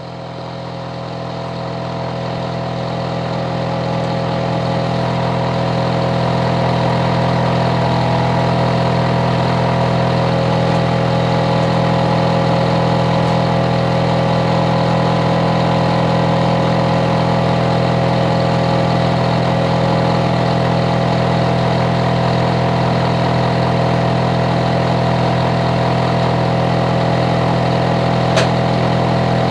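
Hitachi air conditioner outdoor unit running: a loud, steady hum with a low drone and a few fixed higher tones from the compressor and fan. It grows louder over the first few seconds, then holds level, with a single short click near the end.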